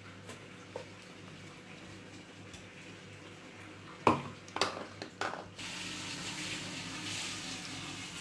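Hot oil in a clay pot: a few sharp knocks a little past the middle, then a steady sizzling hiss starts and keeps going.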